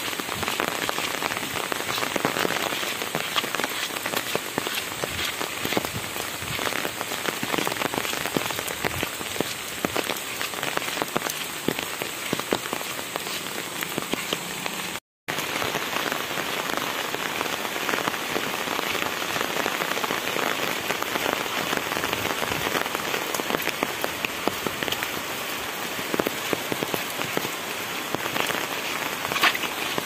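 Steady rain pattering on an umbrella and splashing on a wet road and puddles, a dense crackle of close drop hits. The sound cuts out for an instant about halfway through.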